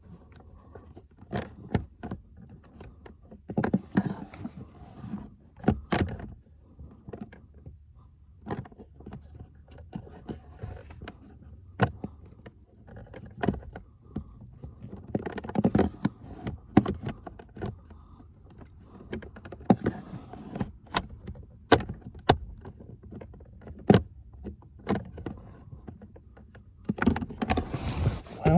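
Repeated sharp plastic clicks, knocks and scraping as a cabin air filter is pushed and worked into its housing, the filter not seating in its groove.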